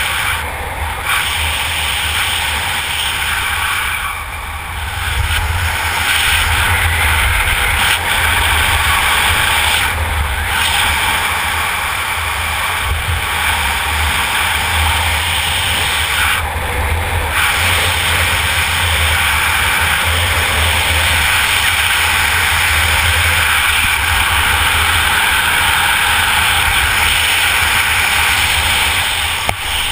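Steady wind rushing over a helmet camera's microphone as a skydiver flies a parachute canopy down to landing, with a deep buffeting rumble under a hiss. It falls away near the end as the canopy touches down.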